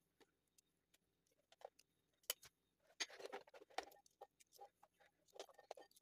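Faint, scattered clicks and soft taps of a small kitchen knife cutting peeled garlic cloves held in the hand over a ceramic bowl, most of them in the second half.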